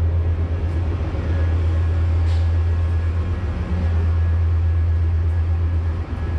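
Commuter train running: a steady low drone with rumbling noise, heard from a passenger car.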